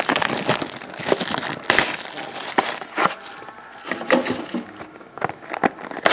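Plastic shrink-wrap being torn and crumpled off a trading-card box, then the cardboard box handled and its lid pried open: irregular crinkling and rustling with scattered light clicks and knocks.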